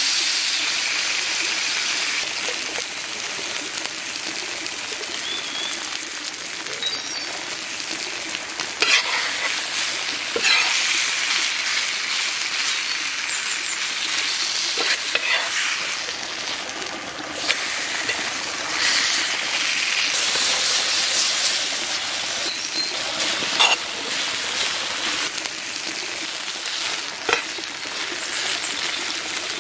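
Beef steak slices frying in oil in a shallow metal pan: a steady sizzle with a few sharp clicks along the way.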